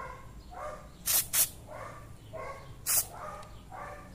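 Three short hisses of aerosol contact cleaner sprayed onto the TV panel's flex-cable connectors: two close together about a second in, one near three seconds. A dog barks repeatedly in the background.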